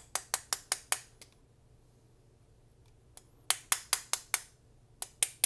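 Plastic screwdriver handle tapping quickly on the aluminium-alloy frame of a Smith & Wesson 642 revolver, to jar its side plate loose: sharp clicking knocks about six a second, in runs broken by a pause of about two seconds near the middle and a shorter one near the end.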